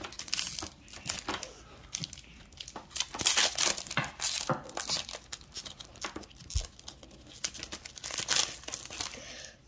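Foil Pokémon booster pack wrappers being torn open and crinkled by hand, in irregular crackling rustles that are loudest about three seconds in and again near the end.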